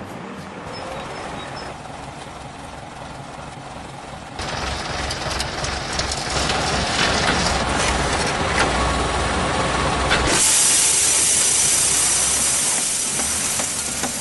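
Tractor running with a rear-mounted Amazone E+S single-disc spreader whose spinning disc throws gritting material onto the road, a steady noisy hiss. The noise steps louder about four seconds in, and turns to a brighter, higher hiss about ten seconds in.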